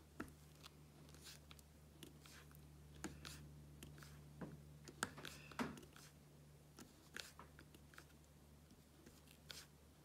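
Faint, irregular clicks and crunchy ticks of a diamond-painting drill pen picking resin drills out of a plastic tray and pressing them onto the canvas, a small cluster of them about halfway through. A low steady hum runs underneath.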